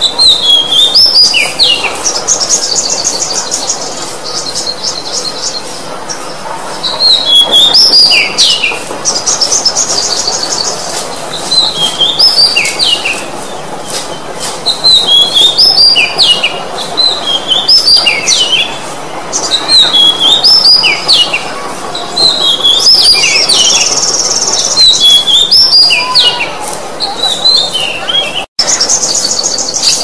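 Oriental magpie-robin singing: repeated phrases of clear whistled notes that leap up and down in pitch, with fast, buzzy high trills woven in every several seconds. The sound cuts out for an instant near the end.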